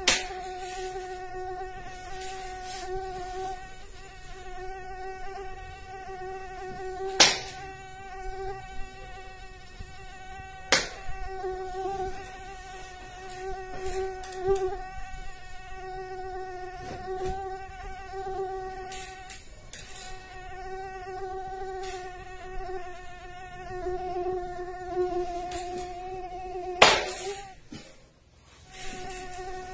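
Mosquito whining: one steady high hum that breaks off briefly now and then. Four sharp hits cut across it, the loudest near the end.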